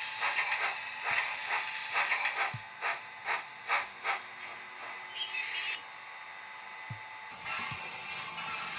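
HO-scale model train running on the layout: a quick, uneven run of clicks like wheels over rail joints, a brief high whistle-like tone about five seconds in, then a steadier running hiss near the end.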